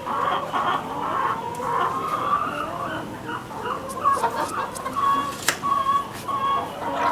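Chickens clucking, many short calls one after another, with one sharp click about five and a half seconds in.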